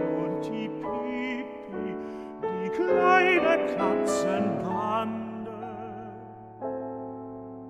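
A slow, lullaby-like German song: a singing voice with wide vibrato over soft piano chords.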